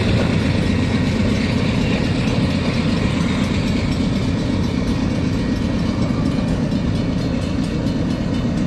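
BNSF freight train's cars rolling past: a steady low rumble of steel wheels on the rails.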